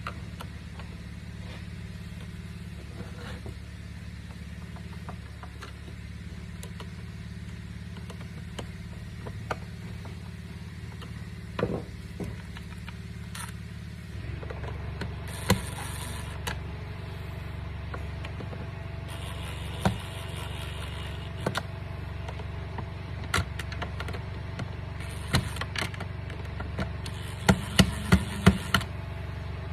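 Scattered clicks and small knocks of plastic vacuum parts and screws being handled during reassembly, over a steady low hum. The clicks come more often near the end.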